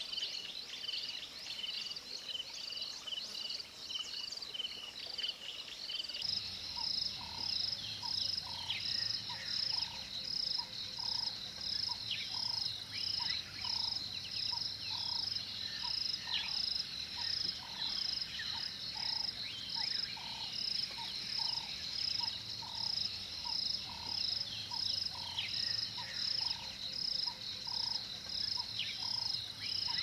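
Outdoor chorus of calling insects and frogs: fast, even high chirping throughout, joined about six seconds in by a regular pulsing call a little over once a second over a low hum, with a few short falling calls.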